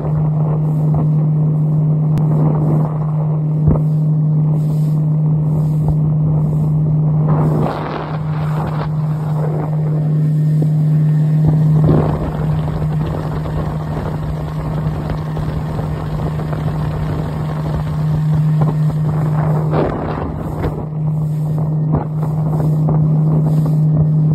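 Motorboat engine running steadily at speed, a constant low drone, with water rushing past the hull and a few gusts of wind on the microphone.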